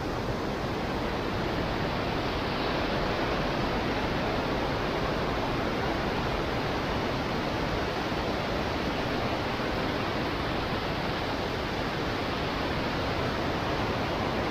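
River water spilling over a curved stone weir in a white cascade: a steady rush of falling water.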